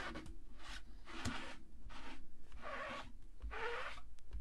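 Cloth scrubbed back and forth over a large rubber background stamp, wiping red ink off it: a run of short swishing rubs, a little under two a second.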